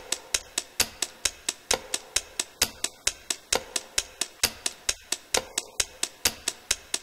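Steady ticking sound effect for a countdown timer: sharp, even ticks about four a second, with a stronger tick about once a second.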